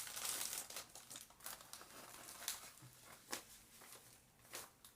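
Small plastic bags crinkling and rustling as they are handled, denser in the first second, then a scatter of light clicks and rustles.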